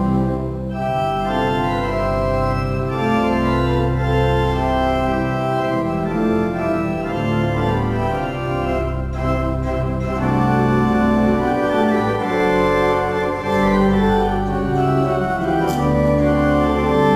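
Church organ playing full, sustained chords over deep bass pedal notes, the harmony changing every second or two.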